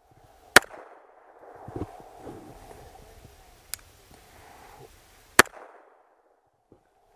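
Two shots from a Glock 21 Gen 4 .45 ACP pistol, about five seconds apart, each a sharp crack. A fainter sharp crack falls between them.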